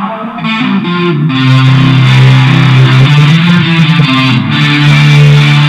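Instrumental passage of progressive rock music, with electric guitar over sustained bass notes.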